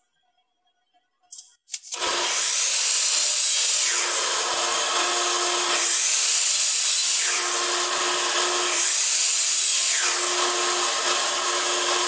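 Kobalt sliding miter saw running and cutting pallet-wood boards one after another, starting abruptly about two seconds in, with the sound swelling and easing as each cut is made.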